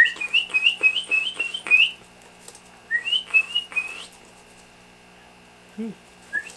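Baby house sparrow chirping: a quick run of short, high, upward-sliding chirps, a pause, then four more and a single one near the end.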